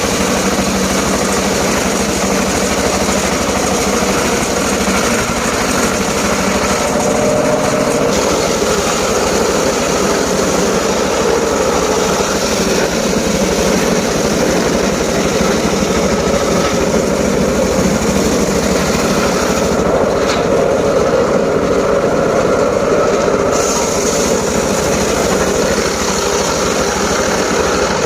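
Engine-driven saw running steadily while cutting teak wood, its tone shifting slightly a couple of times as the load changes.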